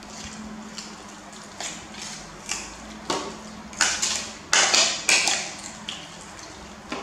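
A spoon stirring a wet mixture of grated vegetable and pork in a ceramic bowl: repeated scraping strokes against the bowl with a wet squish, a little over one a second, loudest about halfway through.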